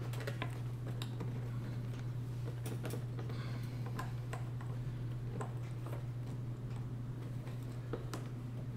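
Scattered small clicks and ticks as fuel line quick-connect fittings are handled and pushed onto the metal outlet tubes of a fuel pump and sending unit module, over a steady low hum.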